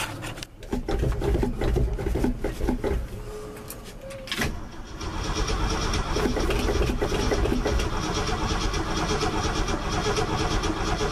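1974 Ford F250's starter cranking the engine on its first cold start of the year: a short burst of cranking, a pause with a click, then a longer steady crank from about five seconds in. The engine turns over but has not yet caught.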